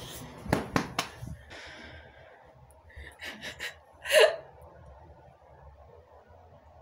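A few sharp knocks about half a second to a second in, then one short voiced gasp about four seconds in.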